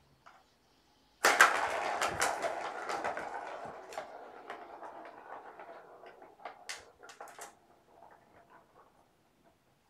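A ball sent spinning around a round plastic track cat toy: it starts suddenly and rolls with a rattling whir that gradually fades as the ball slows, with a few sharper clicks near the end.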